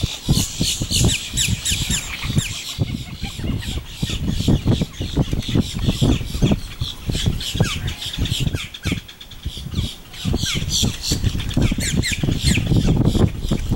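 A chorus of wetland birds squawking and chirping, many short overlapping calls throughout, over a loud, uneven low rumble.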